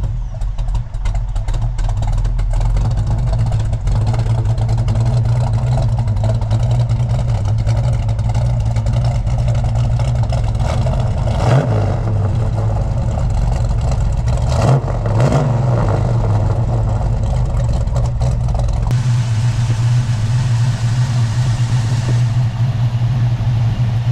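A 426 Hemi V8 in a 1970 Plymouth Cuda running at a steady idle, with a few quick throttle blips about halfway through.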